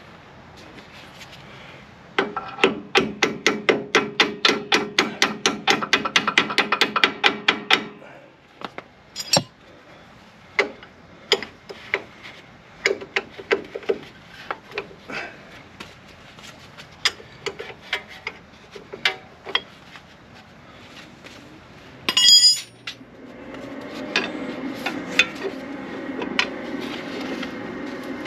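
Tool work on the steel mounting hardware of a pickup's front strut. First comes a run of rapid, even metallic strikes, about five a second with a ringing tone, for several seconds. Then scattered metallic clicks and taps, one sharp clatter near the end, and a steady hum in the last few seconds.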